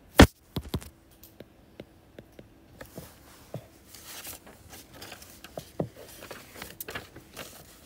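Plastic stylus tapping and scratching on a tablet screen while handwriting: one sharp, loud tap about a quarter second in, then scattered light ticks and soft scratching strokes.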